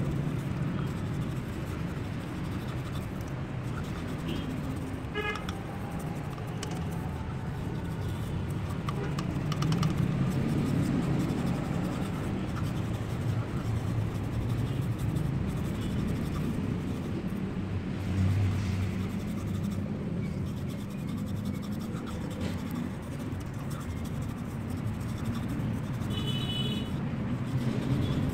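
Steady low rumble of a running vehicle, with a short high-pitched toot near the end.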